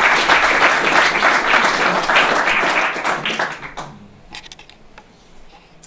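Audience applauding, the clapping fading away about three and a half to four seconds in, followed by a few faint clicks.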